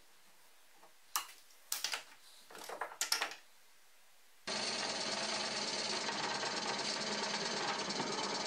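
A few knocks and scrapes as the tapped plywood block is handled and taken out of a metal bench vise, then, about halfway through, a benchtop drill press starts running steadily, its bit boring out the threaded hole in a birch plywood block.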